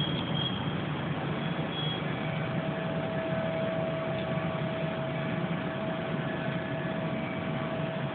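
A steady low hum of unexplained origin, with a thin steady mid-pitched tone held from about a second and a half in.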